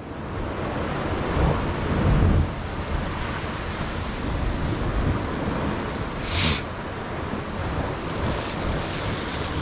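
Sea swell surging and washing against the rocks at the foot of a cliff, rising to a louder surge about two seconds in, with wind buffeting the microphone and a brief hiss a little past halfway.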